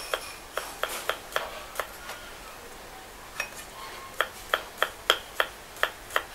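Kitchen knife slicing galangal thin on a cutting board: a series of sharp taps that pause briefly after about two seconds, then come steadily at about three a second near the end.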